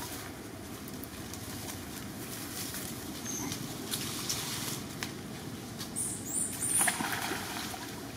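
Young macaques moving about in shallow muddy water and brush: scattered taps, rustles and small splashes over a steady low wash of running water. About six to seven seconds in comes a louder flurry of splashing and rustling with a few brief high chirps.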